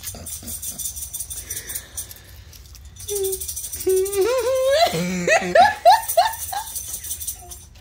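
Small hard objects rattling in short clicks, then a young child's high voice singing out a string of sliding notes for about three seconds.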